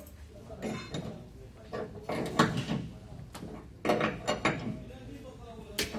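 Hand tool working the edge of a sheet-steel Toyota Camry door skin: several short bouts of metal scraping and clanking, the loudest about two and four seconds in.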